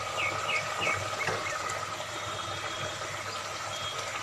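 A steady low hum, with a small bird chirping about five quick falling notes in the first second and a half.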